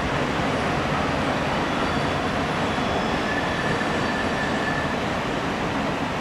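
Freight train's autorack cars rolling past, a steady rumble of wheels on rail, with a faint high squeal for a couple of seconds in the middle, over the rush of a fast river.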